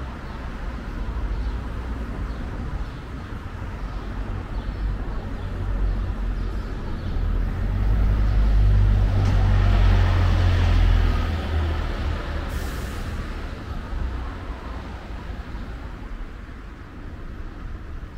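A heavy vehicle, such as a bus or truck, running past out of sight: a deep rumble that builds to a peak about halfway through and then fades away, with a short hiss, like an air brake, just after the peak.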